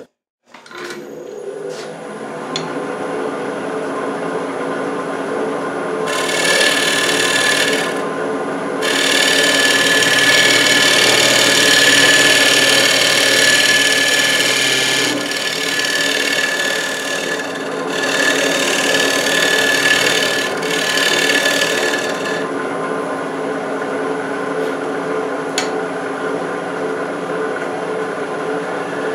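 Wood lathe motor humming steadily while a skew chisel shaves spalted wood from the foot of a spinning urn. The cut comes as a scraping rush in several passes, starting about six seconds in, with the longest pass running from about nine to fifteen seconds.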